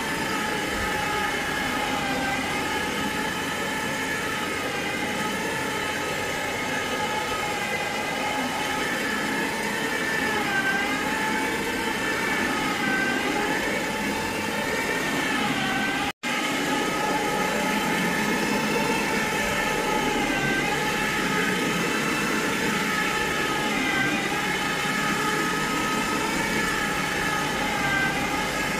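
Steady, high-pitched whine of a fast-running motor, its pitch dipping slightly now and then. It cuts out for an instant a little past halfway, then resumes.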